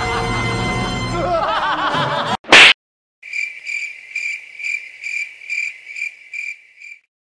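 Laughter over music stops about two and a half seconds in with a brief, very loud burst. Then a cricket-chirping sound effect follows: a run of about a dozen high, even chirps, roughly three a second, the stock cue for an awkward silence.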